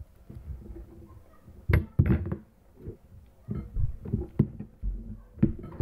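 A handful of short knocks and clatters from eating at a table with a spoon and ceramic bowl: a pair about two seconds in, a cluster around the middle, and one more near the end.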